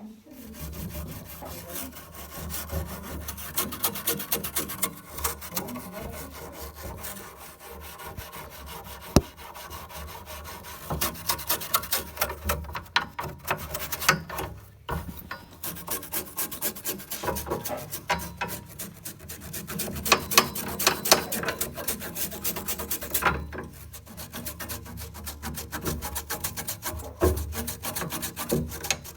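Scrubbing and scraping at a refrigerator's compressor and cooling fan while they are cleaned, heard as continuous irregular rubbing and scratching with sharp clicks. A low hum runs underneath.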